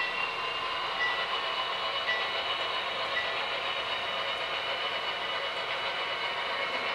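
HO-scale intermodal well cars with all-metal wheels rolling along model railroad track, a steady rolling clatter with a faint high whine and a few brief squeaks in the first few seconds.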